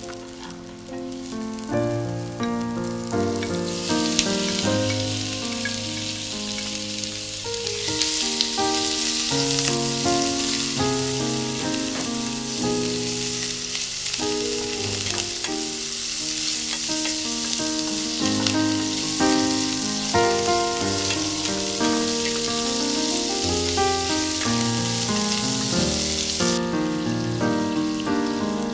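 Garlic, onion and cubed pork frying in hot oil in a pan while a wooden spatula stirs them: a steady sizzle that swells a few seconds in, grows louder again about eight seconds in, and falls away shortly before the end. Melodic background music plays throughout.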